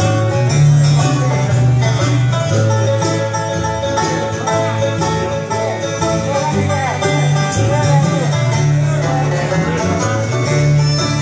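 Bluegrass band playing live: acoustic guitars and an upright bass, with a run of picked notes over a steady bass line.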